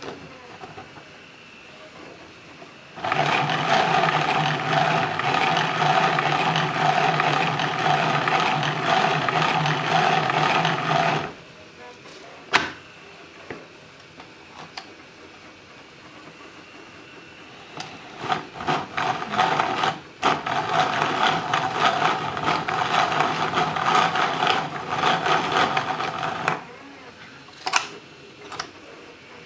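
3D-printed plastic planetary gear sets of an Allison 1000 transmission model whirring steadily as the model is turned by its hand crank in 4th gear for about eight seconds. Then a few sharp plastic clicks as the clutch levers are shifted, and the gears run again in 5th gear for about six seconds, with more clicks near the end.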